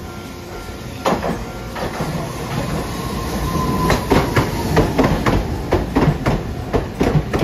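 Hiroden tram passing close by, its wheels clacking over rail joints in a run of sharp clicks, about three a second, through the second half. A short high whine comes near the middle as it approaches.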